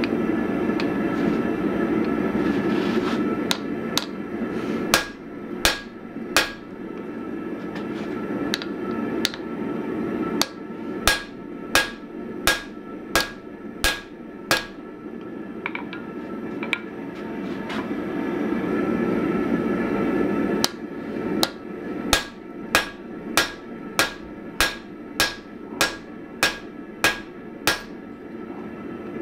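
Hammer blows on a red-hot steel bar lying on an anvil. The blows come in runs, the last one fast and even at nearly two a second, over a steady rushing noise.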